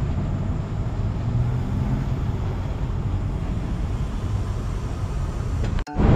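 Steady low rumble and hum of a railway station platform beside standing passenger trains, echoing under the station's high roof; it drops out briefly near the end.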